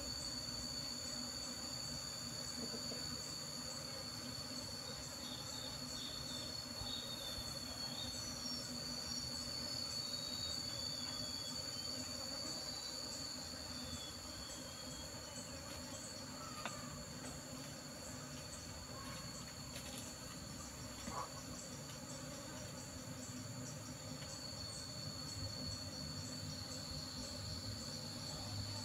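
Steady high-pitched insect drone throughout, with a low hum beneath it and a couple of faint clicks in the second half.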